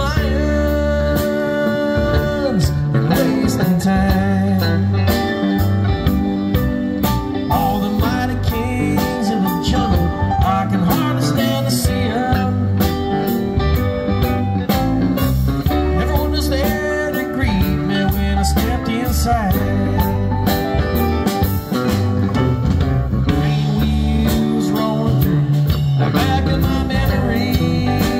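Live rock band playing through a PA: electric guitars, bass guitar, keyboard and a drum kit.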